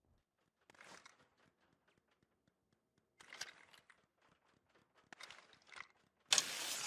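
Faint scattered rustling with a few small clicks, like handling of gear. Near the end comes a sudden loud burst of noise that keeps going.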